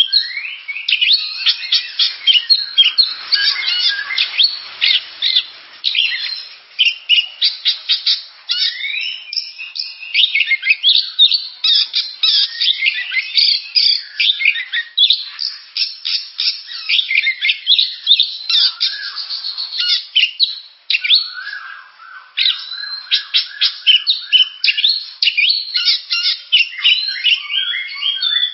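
Oriental magpie-robin (kacer) singing without pause: a rapid, varied stream of short notes, chirps and whistled glides.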